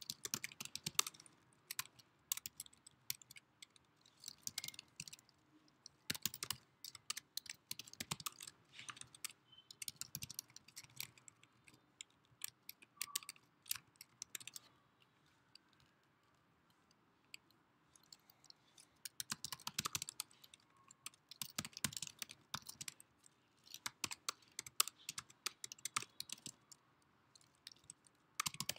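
Computer keyboard typing: uneven bursts of keystrokes, pausing for a few seconds about halfway through.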